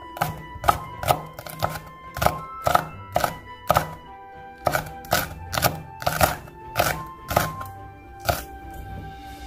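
Knife chopping on a cutting board in sharp, regular strokes, about two a second, with a short pause near the middle. Soft background music plays underneath.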